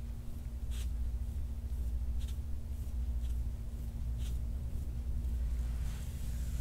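Soft rubbing and brushing of hands working over skin and clothing during neck and upper-back massage, a handful of brief strokes over a steady low hum.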